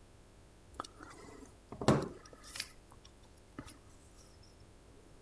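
A few light metallic clicks and knocks from handling a G.Loomis Venture fly reel and small tools, the loudest about two seconds in.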